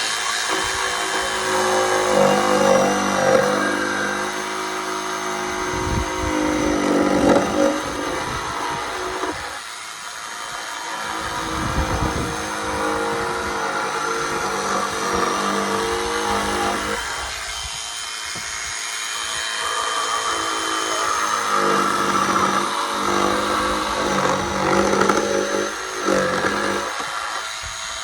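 Electric jigsaw running and cutting holes through wooden pallet boards, its motor whine shifting in pitch as the blade works through the wood, easing off briefly a few times.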